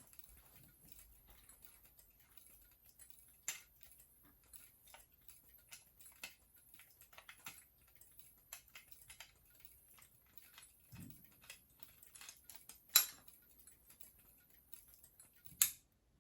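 Many remote fire alarm strobes flashing out of step: faint, irregular clicking over a thin, high-pitched capacitor squeal. The squeal stops near the end, just after one of the louder clicks.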